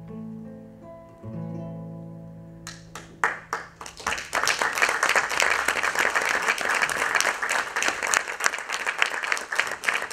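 Acoustic guitar letting its last plucked notes ring and fade. A few claps start about three seconds in, then audience applause fills the rest.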